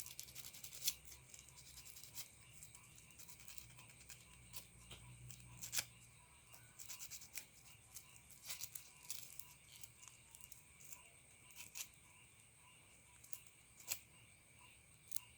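Sandpaper rubbing on an airsoft inner barrel, smoothing a freshly drilled hop-up hole: faint, irregular scratchy strokes.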